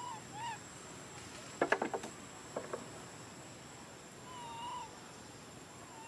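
Baby macaque crying: short, high, arched whimpering calls, with a longer one past the middle. About a second and a half in, a quick run of five or six sharp clicking sounds, then two or three more a second later, the loudest sounds.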